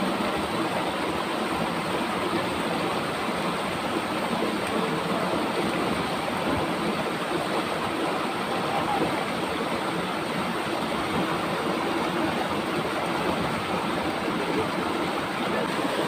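Steady rushing of a shallow, rocky river flowing over stones, an even unbroken wash of water noise.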